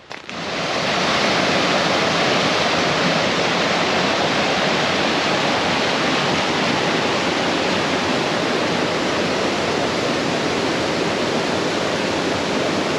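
Loud, steady rush of a mountain river pouring through a narrow gorge, starting abruptly and holding unchanged.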